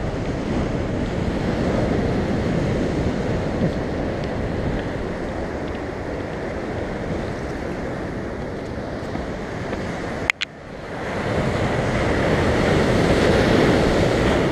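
Ocean surf breaking and washing over rocks, with wind buffeting the microphone. A sharp click and a brief drop in sound come about ten seconds in, after which the surf is louder.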